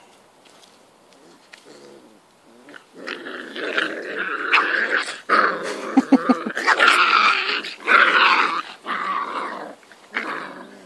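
Five-week-old Springer Spaniel puppies growling as they play-fight. The growling starts about three seconds in and comes in loud, rough stretches with short breaks until just before the end.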